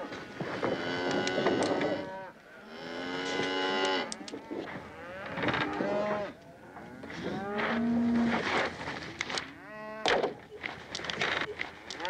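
A penned herd of longhorn cattle lowing and bellowing, many calls overlapping one after another, each swelling and then falling in pitch. A few sharp knocks sound among them.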